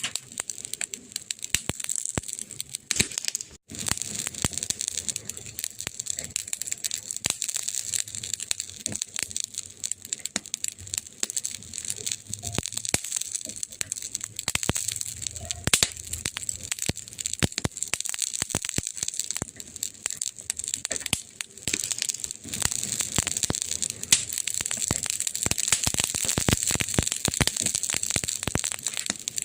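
Wood fire crackling in a fireplace: a dense, irregular run of pops and snaps over a steady hiss and a low rumble. The sound drops out for a split second about three and a half seconds in.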